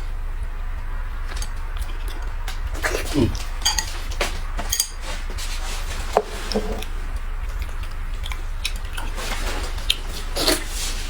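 Eating utensils clicking and clinking against bowls during a meal, in scattered light knocks, over a steady low hum.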